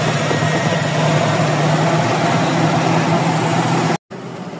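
Toyota 1RZ four-cylinder petrol engine idling steadily, running again after a no-start fault was repaired. The sound cuts out for an instant about four seconds in and comes back quieter.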